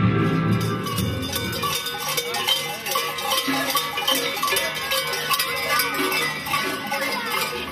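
Large cowbells worn by Krampus-costumed figures clanging continuously and irregularly as they move, many strokes overlapping.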